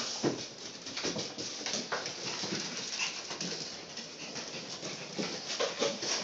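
Chinese crested puppies playing, with short yips and whimpers and their claws clicking and scrabbling on a hardwood floor.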